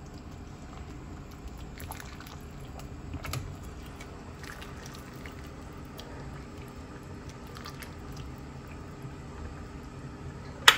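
Metal ladle moving through soup in a metal cooking pot, with a few faint clinks and one sharp clink against the pot near the end, over a low steady background.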